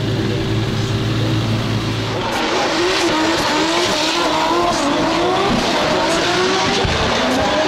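Drift cars on the track, their engines revving up and down at high rpm with tire squeal. Before this there is a steady low hum, which stops about two seconds in.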